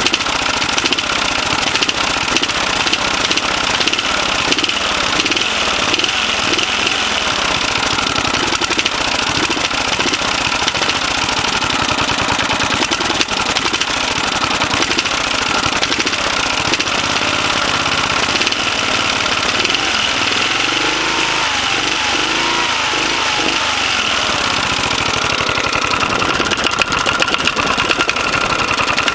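1980 Briggs & Stratton 8 HP single-cylinder engine running with a heavy knock, "like someone hitting the block with a hammer"; the owner takes it for piston slap rather than rod knock.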